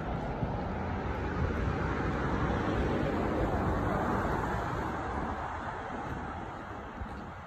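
Road traffic noise: a rush of tyres and engines from passing vehicles on a multi-lane road. It swells to a peak a few seconds in and then slowly fades.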